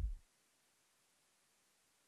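Near silence with faint hiss, right after a falling-pitch sound cuts off at the very start.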